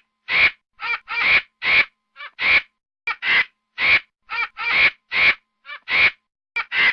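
Excited monkey calling: a steady run of short, high-pitched cries, about two to three a second, some in quick pairs, with brief silences between.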